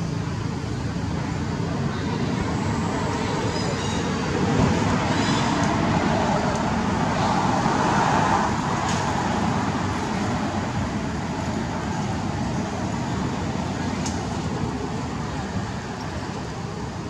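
Steady outdoor background rumble and hiss, swelling for a few seconds around the middle and easing off near the end.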